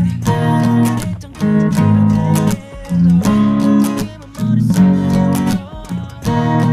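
Music led by a strummed acoustic guitar, chords struck in a steady rhythm.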